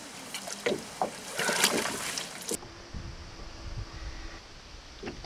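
A fish being landed with a net beside a rowboat: irregular splashes and knocks of the net, water and hull. About two and a half seconds in, these give way to a low rumble of wind and handling with a faint steady hum.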